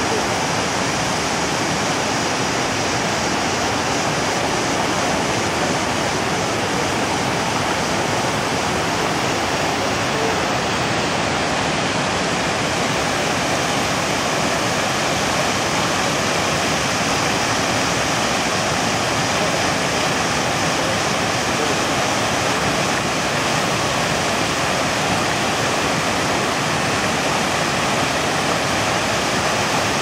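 River rapids rushing and cascading over and between boulders: a loud, steady rush of white water that holds an even level throughout.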